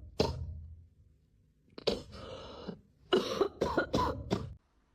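Coughing in bursts: one short cough at the start, a longer one about two seconds in, then a quick run of several coughs.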